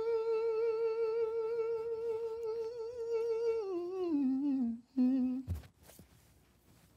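A man singing a cappella holds a long final note with a steady vibrato, then steps down through a short descending run and ends on a brief low note about five seconds in. A single low thump follows, then only faint rustling.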